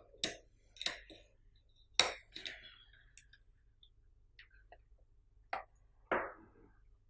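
A few separate sharp clicks and taps from handling a power cord and Arduino board, the loudest about two seconds in.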